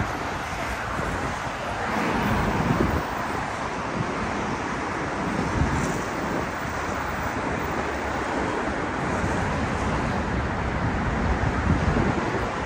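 City road traffic: cars passing on the street with a steady rumble, some swelling louder as they go by, and wind on the microphone.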